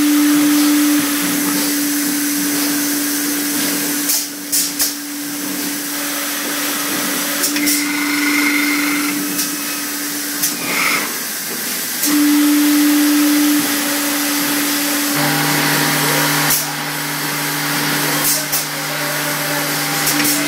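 Eight-head linear liquid filling machine running: a steady motor hum with a pitched drone that swells louder at times, a second lower drone joining later, and a handful of sharp clicks.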